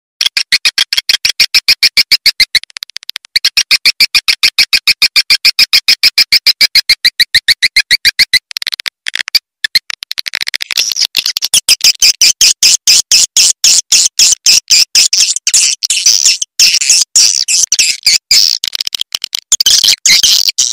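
Swiftlet call track for luring edible-nest swiftlets: a fast, even string of sharp chirps, about five a second, for roughly the first eight seconds, then after a short break a denser, higher twittering chatter.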